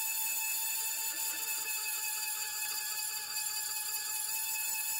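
A 3.5-inch hole saw, driven by an old 1/3 horsepower drill press, cutting into half-inch steel plate: a steady high whine of the teeth and motor on steel, with no change in pitch.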